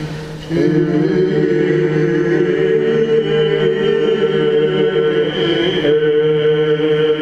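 Byzantine chant: a male cantor sings a slow, melismatic line over a steady held drone (the ison). The voice drops away briefly at the start and comes back in about half a second in.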